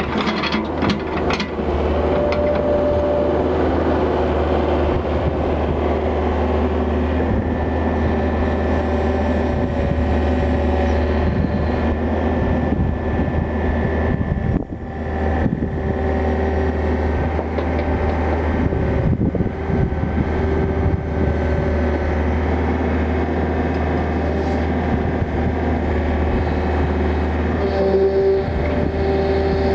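Yanmar 50 mini excavator's diesel engine running steadily, with several steady tones above it that come and go and a few clicks right at the start.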